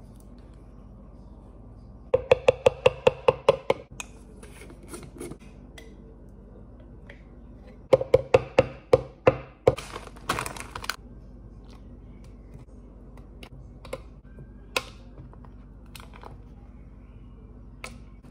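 A knife tapped rapidly against a container's rim to knock off peanut butter: two runs of about ten ringing clinks each, roughly six a second. After the second run comes a short rustle, as of a plastic bag.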